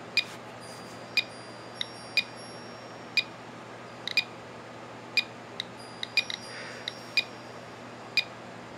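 GQ GMC-300 Geiger–Müller counter beeping for detected counts: short high beeps, mostly about once a second with a few extra ones in between. They come from the radiation of a thoriated Super-Takumar 55mm f/2 lens.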